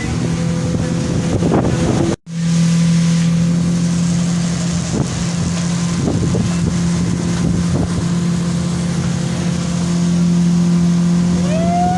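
Motorboat engine running at a steady speed, with wind noise on the microphone; the sound cuts out for a moment about two seconds in.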